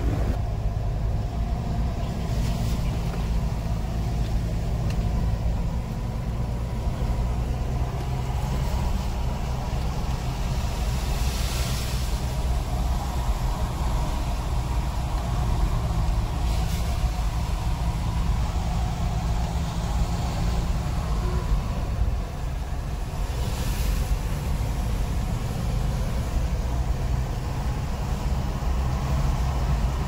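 Car driving at speed: a steady low drone of engine and road noise, with three short swells of hiss near the middle and later on.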